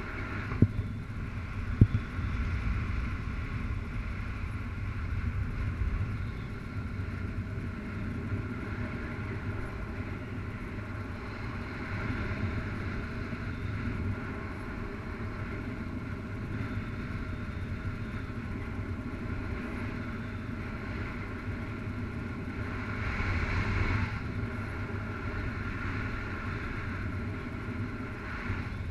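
Airflow rushing over a harness-mounted camera during a paraglider flight: a steady wind rumble that swells gently a few seconds before the end, with two sharp knocks in the first two seconds.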